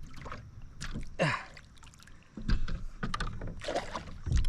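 Scattered knocks and bumps on a kayak as a freshly caught pickerel is handled aboard.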